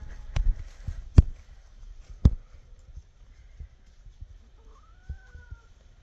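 Three sharp knocks in the first two and a half seconds, then, about five seconds in, a single short animal call from the pasture of sheep and hens, rising and then falling in pitch.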